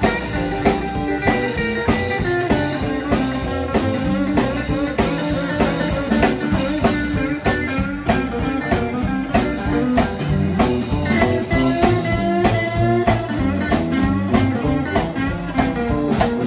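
Live electric blues band playing an instrumental break without vocals: electric guitars over a drum kit keeping a steady beat.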